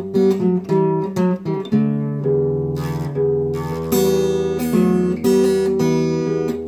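Acoustic guitar played without singing: chords strummed and ringing, several strokes a second.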